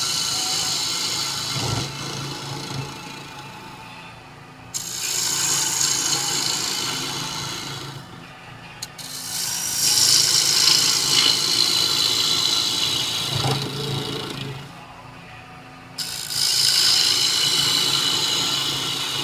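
A turning tool cuts into the inside of a spinning cherry bowl on a wood lathe, making a hissing, shearing sound as shavings come off. The cutting comes in four passes of a few seconds each with short pauses between, over the steady hum of the lathe.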